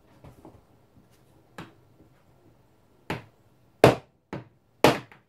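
Sharp blows driving the spindle down out of an 8 mm Wolf Jahn watchmaker's lathe headstock, the spindle just starting to come free of its oily bearings. A light knock comes after about a second and a half, then four sharp strikes in the last two seconds, one of them lighter.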